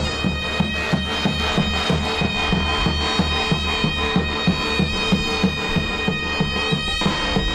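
Davul and zurna playing a folk tune: the shrill double-reed zurna holds long high notes over a steady davul beat of about three strokes a second.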